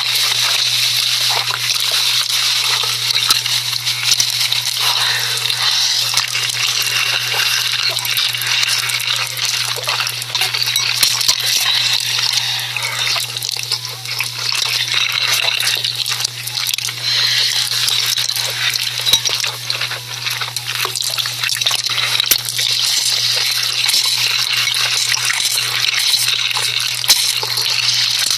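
Close-miked ASMR noodle video sounds playing back: a dense, continuous crackle of many small clicks, with a steady low hum underneath.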